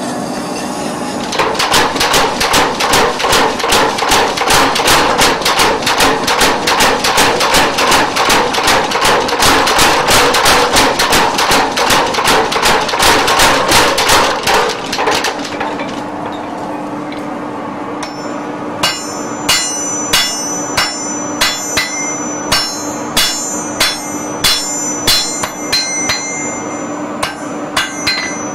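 Blacksmith's mechanical power hammer pounding hot iron in a fast, even run of blows that stops after about thirteen seconds. After a short pause, with a steady hum underneath, hand-hammer blows land on the anvil at about one to two a second, each ringing.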